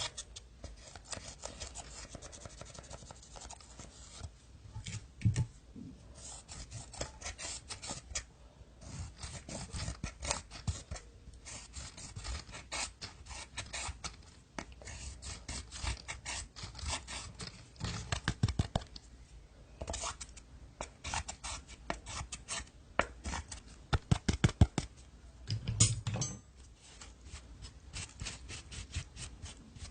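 Slime being squeezed and worked by hand, giving dense runs of small crackling clicks and pops, heavier in a few bursts.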